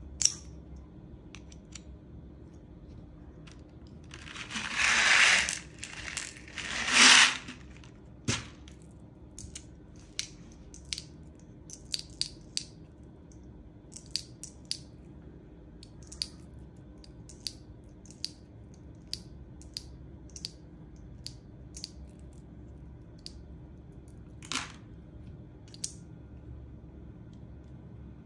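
Pressurised airsoft gas hissing in two bursts, about four and seven seconds in, as a gas blowback magazine is charged. Then a run of light clicks from small parts being handled, with one more short hiss near the end.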